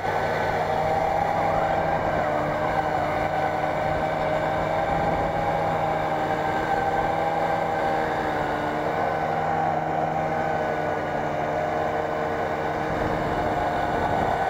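Snowmobile engine running at a steady pitch while the machine drives through snow.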